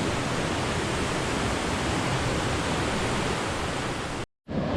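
Fast-flowing stream water rushing steadily. It cuts off suddenly near the end.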